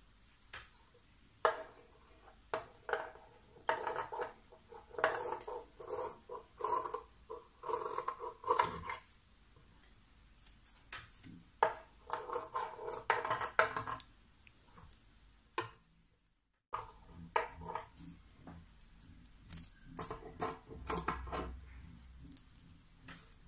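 Scissors snipping through black fabric, trimming the excess beyond a machine-stitched seam, in three runs of quick short cuts with pauses between them.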